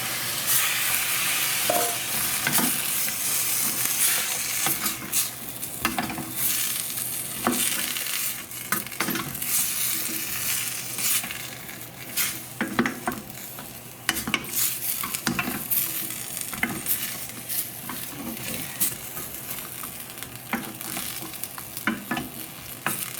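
Green beans with bacon sizzling in a hot pan after a splash of water is added, stirred with a utensil that scrapes and clacks against the pan at irregular moments. The sizzle is strongest in the first few seconds and eases a little about halfway through as the water cooks off.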